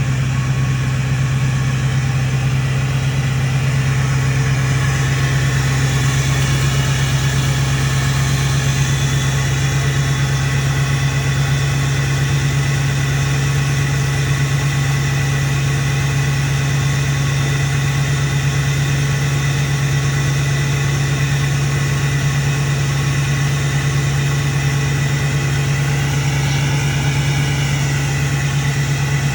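Ford 6.4 Powerstroke turbo-diesel V8 idling steadily, with the faint high whistle of its turbocharger over the engine's low hum. Near the end a faint high tone briefly rises and falls.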